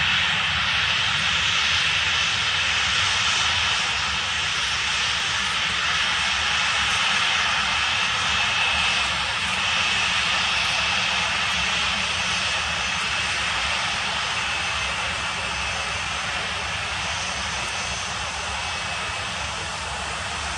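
Boeing 737-900ER's twin CFM56-7B27 turbofan engines at taxi power: a steady high-pitched whine over a low rumble, growing slowly fainter in the second half as the jet rolls past.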